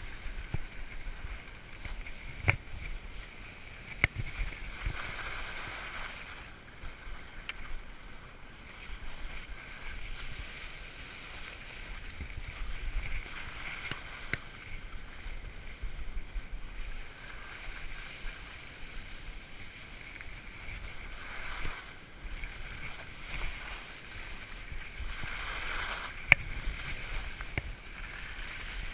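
Skis sliding and scraping over soft, slushy spring snow, a steady swishing hiss, with a few sharp clicks, the loudest near the end.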